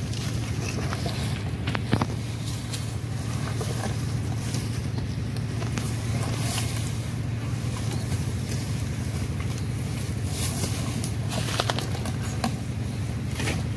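Steady low wind rumble on the microphone, with scattered short clicks and crackles over it.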